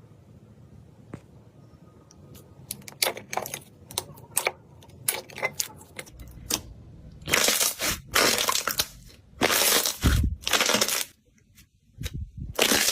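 Slime being pressed and squeezed by hand, making a run of sharp crackles and pops from about three seconds in, then longer crunching squishes in the second half.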